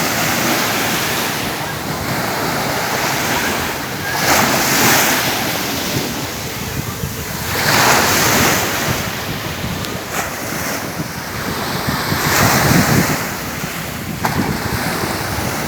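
Sea waves breaking on the shore, the surf swelling and falling back about every four seconds, with wind buffeting the microphone.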